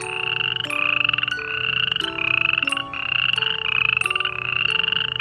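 A run of back-to-back croaking calls, each about two-thirds of a second long, with a fast rattle and a slight rise in pitch. A slow chiming melody plays underneath.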